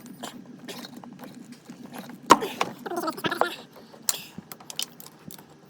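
Hand tools clicking and knocking against metal while spark plugs are being removed, with one sharp knock about two seconds in, over a faint steady hum.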